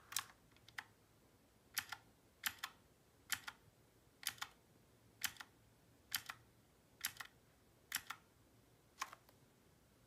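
MK11 mechanical keyboard's blue switches clicking as single keys are pressed about once a second, each press a sharp click followed closely by a softer second click.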